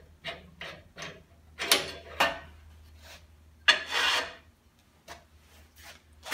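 Tap in a drill press hand tapper turning in a freshly tapped 1/4-20 hole in aluminium, short rasps about three a second. About two seconds in and again near four seconds come louder scrapes as the aluminium workpiece is moved on the steel drill press table.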